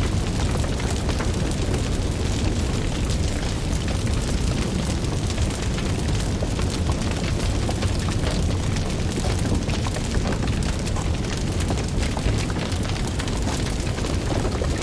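Wood fire burning in a fireplace: a steady low rush of flames under dense, quick crackles and pops.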